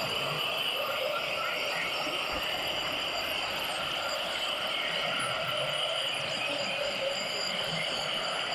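A steady, dense jungle ambience with high, thin chirping calls running through it.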